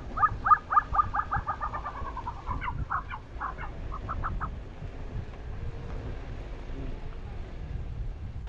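Tibetan snowcock calling: a fast run of short repeated notes, about five a second, that slows into a few scattered notes and stops about four and a half seconds in. Low wind rumble underneath.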